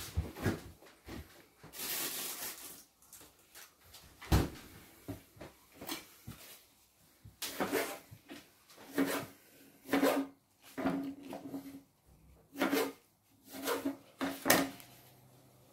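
Kitchen knife slicing a tomato on a plastic chopping board: irregular knocks as the blade meets the board, about one a second.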